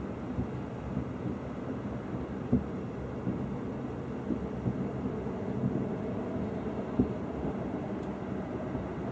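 Fireworks going off at a distance: a continuous low rumble of bursts and crackle, with sharper bangs about two and a half seconds in and again about seven seconds in.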